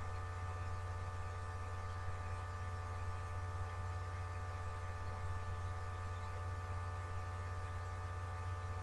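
Steady electrical hum, a low buzz with a row of even overtones, unchanging throughout.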